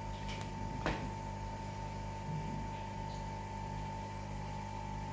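Steady low electrical hum with a thin, steady high-pitched whine over it, and a single sharp click about a second in.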